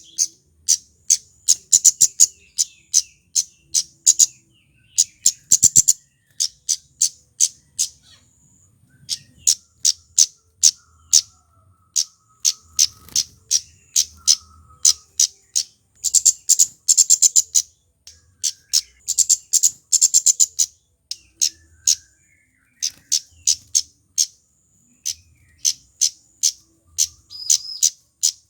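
Kemade flowerpecker giving sharp, high-pitched 'cit' ticks in rapid runs of many notes a second, broken by short pauses.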